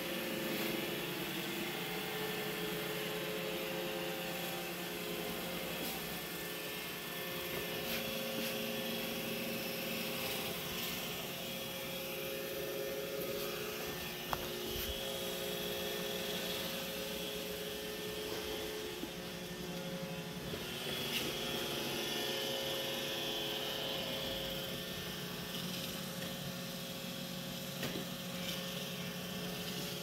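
iRobot Roomba i3+ robot vacuum running on a hardwood floor: a steady whir of its suction fan and brush motors, with a few brief clicks along the way.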